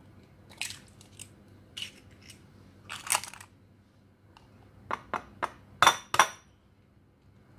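Eggs being cracked on the rim of a ceramic bowl: scattered light clicks and crackles of eggshell, then, about five seconds in, a run of sharper taps against the rim, the loudest two near the end.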